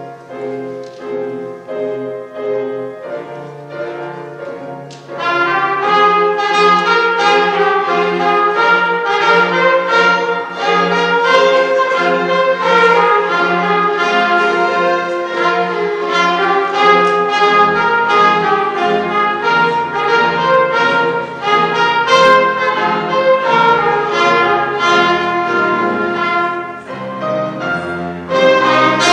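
A string ensemble of violins and cellos with piano playing a classical piece. It starts softly and swells fuller and louder about five seconds in, with a short lull just before the end.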